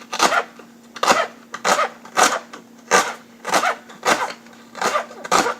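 Kitchen knife chopping Swiss chard stalks on a cutting board, a steady run of sharp chops a little under two a second.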